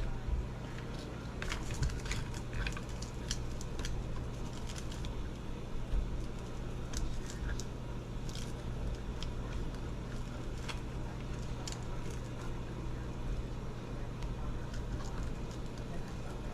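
Light clicks and knocks of plastic and metal parts as an RC car's center differential is worked by hand into its chassis and wiggled into place, irregular and scattered, over a steady low hum.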